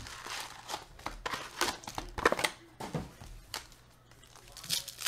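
Cardboard trading-card box being pulled open by hand and foil-wrapped card multi-packs taken out, with dense crinkling and rustling, quieter about halfway through and a louder crinkle near the end.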